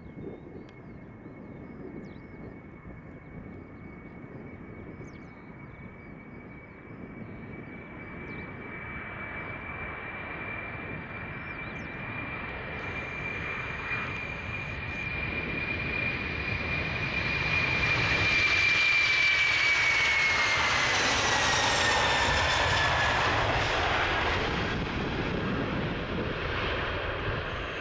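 Boeing 747-400 freighter's four jet engines at takeoff thrust, growing steadily louder as the aircraft rolls toward and past the listener. A high whine rides over the roar and drops in pitch as it passes, about 19 to 23 seconds in.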